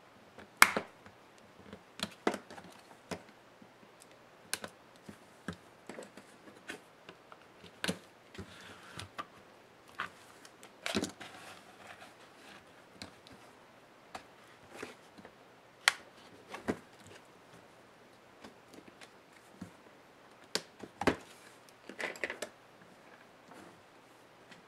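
Irregular sharp clicks, taps and snaps of a pry tool and fingers working on a laptop display panel and its hinges, with a few louder snaps scattered through. Short stretches of scraping run between the clicks.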